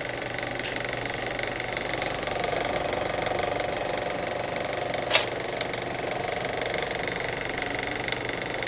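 A small machine running with a steady, fast mechanical clatter and a faint steady hum, with a single sharp click about five seconds in.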